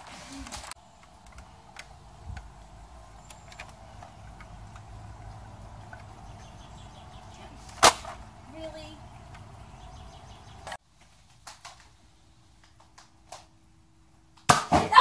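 A toy foam-dart blaster fires once with a sharp snap, over a faint steady background. Near the end, loud voices.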